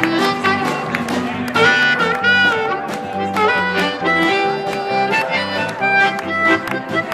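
Live country band playing an instrumental passage: a steady beat under a held, wavering lead melody.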